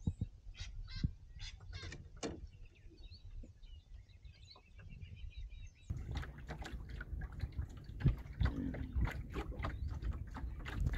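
Birds chirping faintly over scattered light knocks. Then, from about six seconds in, water slapping and splashing against a small sailing dinghy's hull in quick irregular knocks over a low steady rumble.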